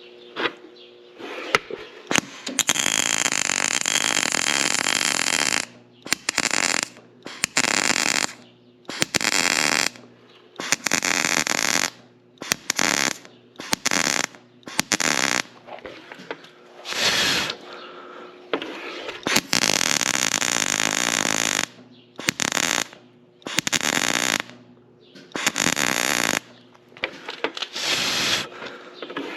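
Electric arc welding in about a dozen short bursts of crackling and sizzling, stopping and restarting every second or two, as weld is built up on a stud broken off below the surface of a mower conditioner's cutter bar.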